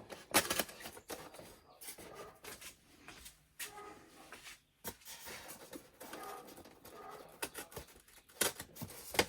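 A utility knife slitting packing tape on a cardboard box, and the box being handled: scattered short scrapes, taps and rustles.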